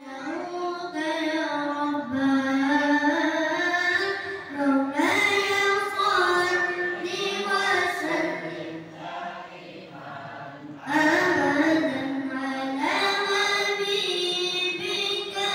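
A boy's solo voice singing unaccompanied, holding long ornamented notes in a devotional chant style. A new phrase comes in loudly about eleven seconds in.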